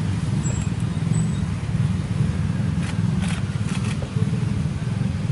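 Steady low rumble of outdoor background noise, with a few short clicks about three seconds in.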